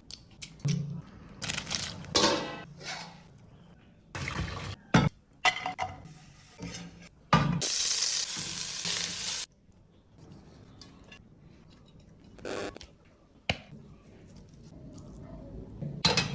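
Kitchen utensils and cookware clinking and knocking, in scattered short strokes, with a steady hiss for about two seconds halfway through.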